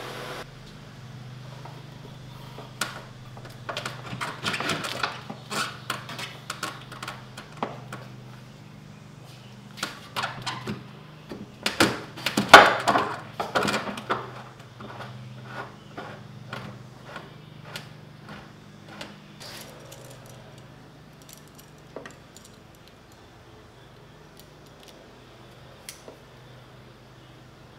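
Clattering, scraping and knocking handling noises as a red extension cord is fed and pulled through a black iron pipe into a wooden cart box, with the loudest clatter about twelve seconds in and only scattered light clicks later, over a steady low hum.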